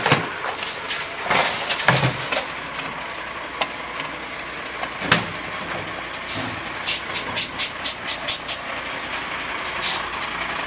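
Rear-loader garbage truck running, with scattered sharp knocks and clatter; near the end, a quick run of about eight bangs, roughly five a second.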